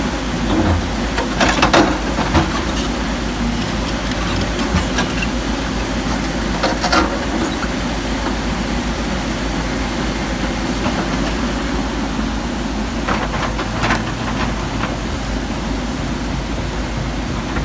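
Diesel engine of a JCB 220 LC tracked excavator running steadily, with a few sharp knocks: once early, once around the middle and twice about three-quarters through.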